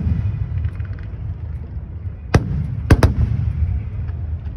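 Fireworks display: a continuous low rumble of bursting shells with scattered small pops, and two loud sharp bangs about half a second apart a little past the middle.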